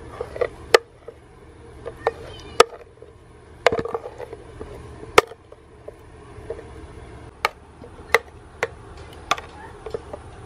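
About a dozen irregular sharp taps and knocks, glass and hard plastic against one another, while a thick mango smoothie is poured from a blender jar into a glass. A low steady hum runs underneath.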